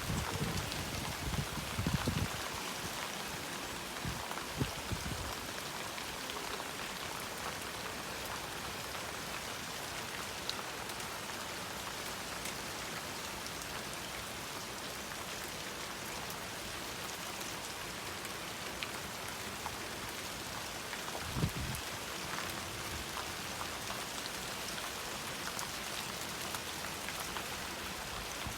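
Rain falling steadily. A few brief low thuds stand out: in the first couple of seconds, again about five seconds in, and once about three quarters of the way through.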